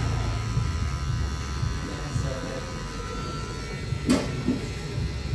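Electric hair clippers buzzing steadily as they trim short hair at the side of a man's head, with one sharp click about four seconds in.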